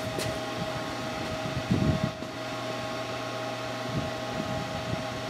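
Steady electrical hum and fan noise, with a short low thump just under two seconds in.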